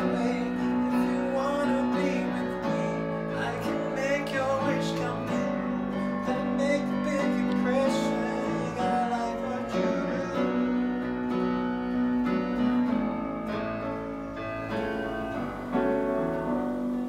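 A man singing to his own accompaniment on a Yamaha electronic keyboard, with held chords under a wavering vocal melody.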